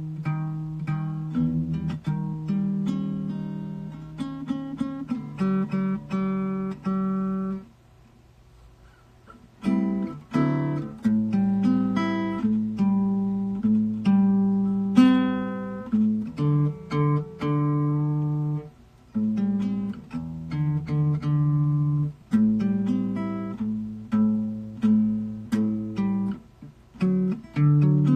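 Acoustic guitar playing chords and picked notes, with a brief pause about eight seconds in before the playing resumes.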